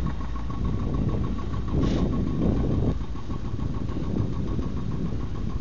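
A vehicle's engine running steadily as it rolls along at low speed, a low rumble with a faint steady whine, swelling louder for about a second around two seconds in.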